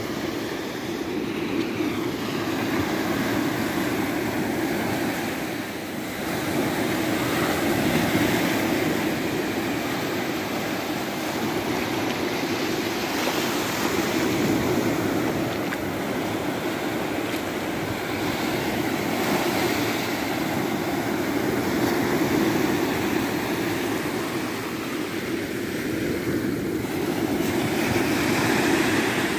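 Small sea waves breaking and washing up over a sandy beach: a steady rush of surf that swells and eases every several seconds.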